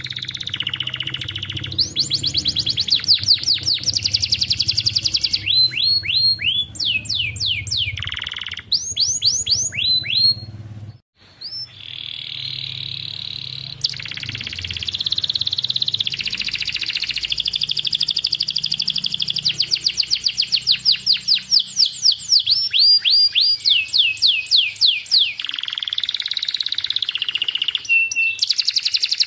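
Domestic canary singing a continuous song of long, fast trills, each made of rapidly repeated falling notes, broken by a brief pause about eleven seconds in.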